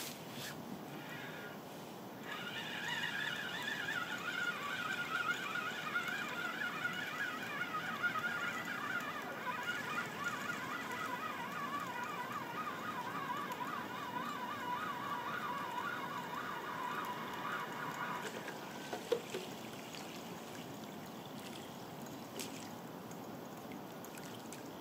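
A carp rod's spinning reel being wound in steadily, a whirring gear whine that slowly falls in pitch and stops about eighteen seconds in, as the rig is retrieved across the water. A single click follows shortly after.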